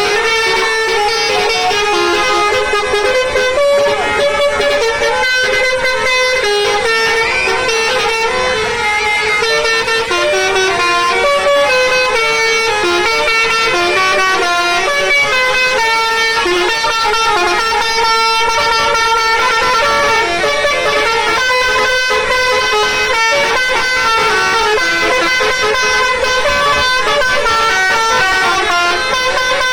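Indonesian bus telolet air horns playing quick stepped melodies, several horn notes sounding together and changing pitch from note to note without a break.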